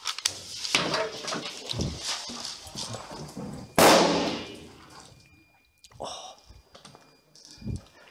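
Footsteps and kit rustling as an airsoft player moves fast through indoor corridors, with scattered clicks and knocks. About four seconds in comes one loud sudden bang that dies away over about a second.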